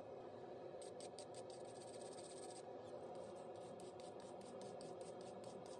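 Faint, quick back-and-forth scrubbing strokes on forged steel by hand, about four to five a second, starting about a second in.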